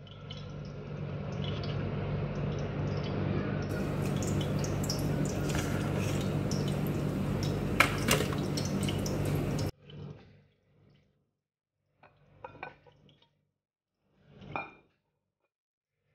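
Hot oil sizzling in a frying pan, a steady crackling hiss over a low hum, with a few sharp pops about eight seconds in. The sizzle cuts off abruptly near ten seconds, and a few light clicks follow.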